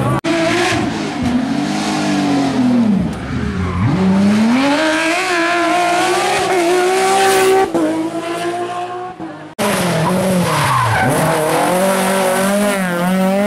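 Rally cars driven hard one after another, engines revving up and dropping sharply in pitch on downshifts and braking. The sound breaks off abruptly between cars.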